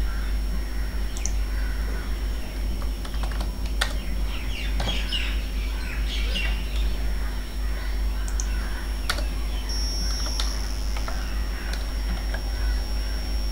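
Scattered keystrokes on a computer keyboard as a line of code is typed, with birds chirping in the background and a steady low hum underneath.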